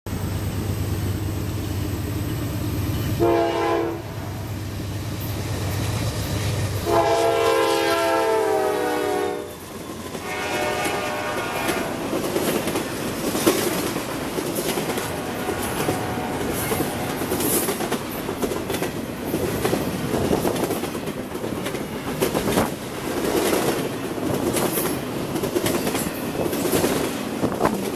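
Freight train's air horn sounding several tones at once: a short blast about three seconds in, then a long blast from about seven to nine and a half seconds. Then double-stack container cars roll past, wheels clacking steadily over the rails.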